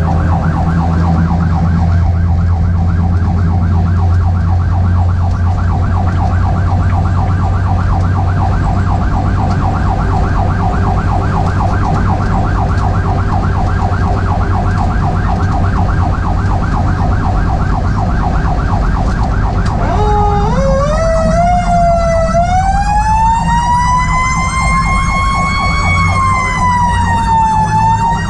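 2021 Spartan Metro Star fire engine running code, its electronic siren warbling rapidly over a steady engine and road drone. About twenty seconds in, a Federal Q mechanical siren winds up, rising over several seconds to a high wail that peaks, eases slightly and holds.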